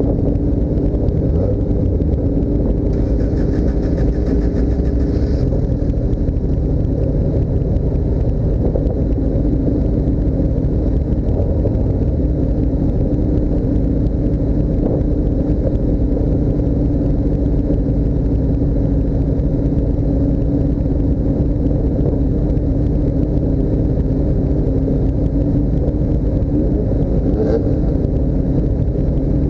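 Motor vehicle engine running at a steady speed: an even, low drone that holds without change, with a brief faint click near the end.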